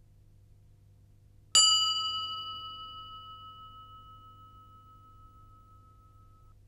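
A single bell-like chime, struck once about a second and a half in, rings with a clear tone and fades away over about five seconds.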